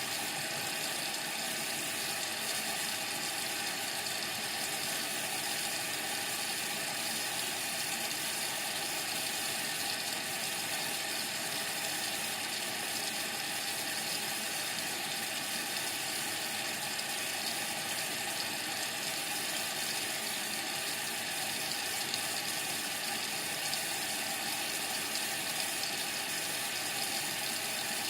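Indesit MTWC71252WUK washing machine filling with water early in its Cottons 30 cycle: a steady hiss of water running into the machine.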